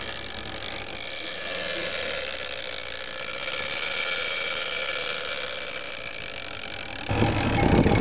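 Drag of a gold big-game trolling reel whining steadily as a hooked fish pulls line off the spool. About seven seconds in it gives way to a louder, low rumble.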